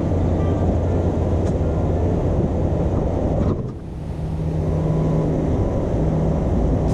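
Wind rumbling on an open-air camera microphone, with a steady low hum underneath. It drops away briefly about halfway through.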